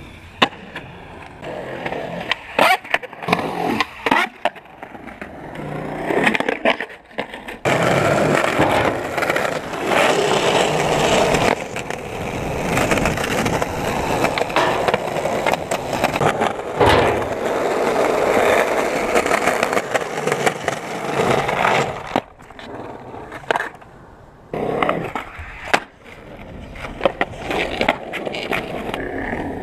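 Skateboards on concrete: wheels rolling with sharp clacks from tail pops, landings and board hits. A long stretch of loud, steady rolling noise fills the middle.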